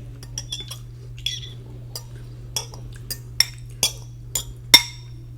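Eating utensil clinking against a dish, about ten sharp clinks with a short ring, irregularly spaced, the loudest near the end.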